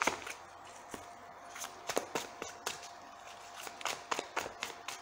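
Tarot cards being shuffled by hand, overhand, giving soft, irregular clicks and flicks of card against card in loose clusters.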